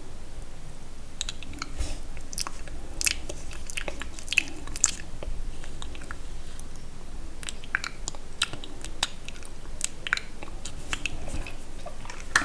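Close-up wet, sticky mouth sounds: irregular clicks and smacks, few in the first second, then in clusters.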